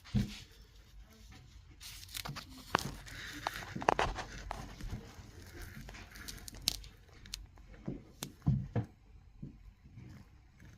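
Hands handling small parts and packaging at the boiler: scattered clicks, light knocks and rustling, with a louder knock near the end.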